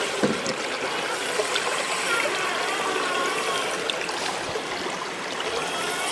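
Steady rush of running water, like a stream, with a few faint ticks.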